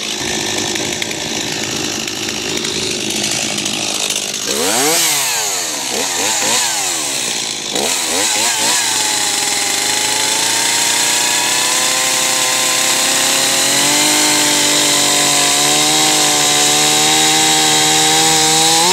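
Chainsaw running: revved in several quick up-and-down blips about halfway through, then held at a steady high pitch that creeps slightly higher toward the end.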